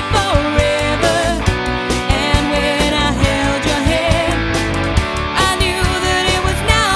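Rock-style band music: a steady drum beat with electric guitar and a lead vocal.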